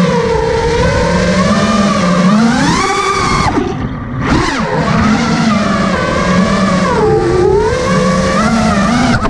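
FPV quadcopter's brushless motors and propellers whining, pitch rising and falling with throttle; the whine drops away sharply about three and a half seconds in, then climbs again.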